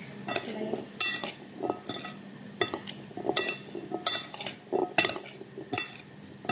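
Two metal serving spoons clinking against each other and the bowl while tossing a chickpea salad. The clinks are sharp and irregular, about one or two a second, with the soft shuffle of the salad between them.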